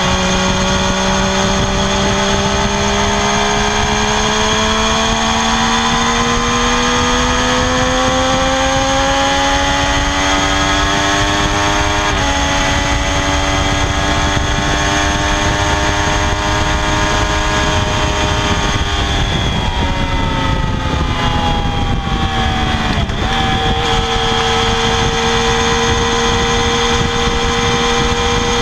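2016 Triumph Daytona 675R's 675 cc inline three-cylinder engine running through its stock exhaust. The pitch climbs slowly for about twelve seconds, holds, falls away from about twenty seconds in with a short dip, then settles at a steady pitch.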